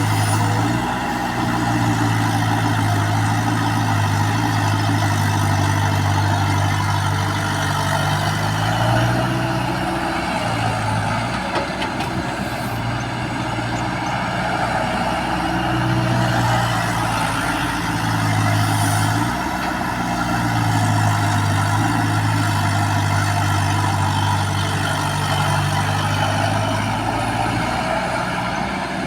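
Backhoe's diesel engine running under working load, its pitch rising and dipping every few seconds as it works.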